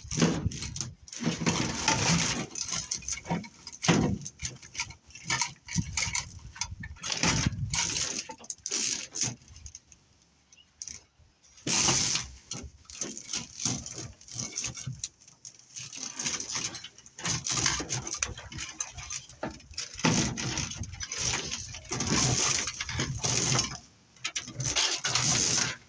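Scrap armoured cable and wire being handled and sorted: irregular scraping, rustling and clinking of metal, with a short pause about ten seconds in.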